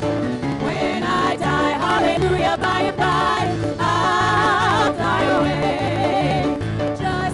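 Three women singing a gospel song together in harmony through handheld microphones, over amplified instrumental backing with a steady beat.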